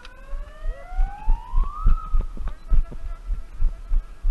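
A siren winds up, rising smoothly in pitch over about two seconds, then holds one steady tone. Low thuds repeat about three times a second underneath.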